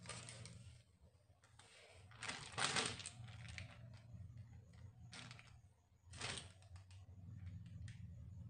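Thin plastic sheet crinkling and rustling under the hands, with small clicks and taps as a lid is pressed through rolled-out rice papad dough and the cut rounds are lifted. The loudest rustle comes about two to three seconds in, over a low steady hum.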